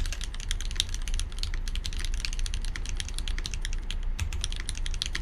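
Continuous fast typing on a Keycult No.1/65 mechanical keyboard with lubed Cherry retooled black linear switches and 65 g springs: a dense, uneven patter of keystrokes over a low steady hum.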